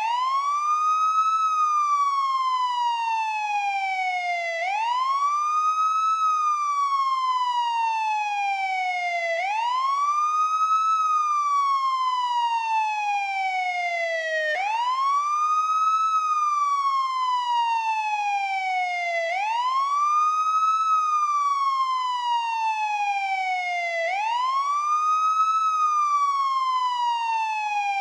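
Police siren sounding its wail tone: the pitch sweeps quickly up, then slides slowly back down, over and over, each cycle about four and a half seconds long.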